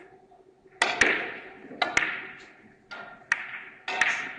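Three-cushion carom billiards shot: the cue tip strikes the cue ball about a second in, then the balls click off each other and knock off the cushions as they travel around the table. About eight sharp clicks and knocks are spread over some three seconds, each with a short ringing tail.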